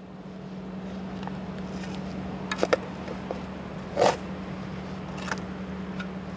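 A shovel blade being driven into and scraping through soil: a handful of short scrapes and thuds, the loudest about four seconds in, over a steady low hum.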